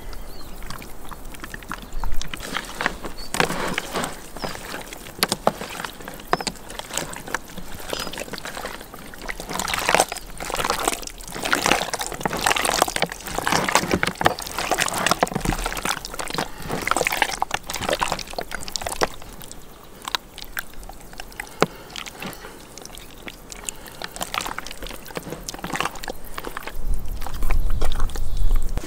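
Bare hands kneading raw meat in an oily marinade in a plastic basin: irregular wet squelching and squishing, busiest in the middle.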